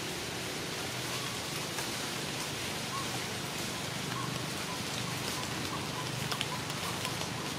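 Steady outdoor hiss with a few light crackling ticks that come more often near the end.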